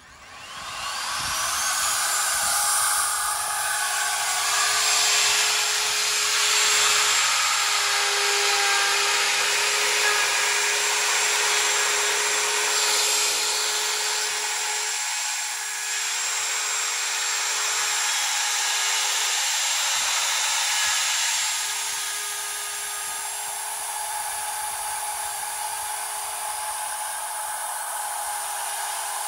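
Electric plunge router switched on, its motor whining up to full speed over about a second, then running steadily as the bit routes a shallow, flat-bottomed pocket in wood for a Dutchman patch. Its pitch sags briefly a few times as the bit takes load, and it runs a little quieter for the last several seconds.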